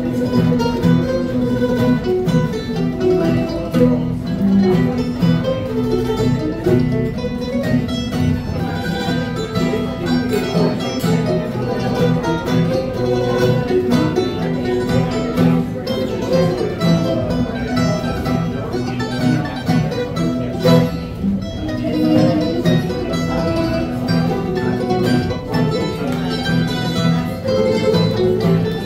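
Acoustic string trio playing an instrumental dance tune without pause: acoustic guitar, a banjo-bodied instrument and a mandolin, all plucked.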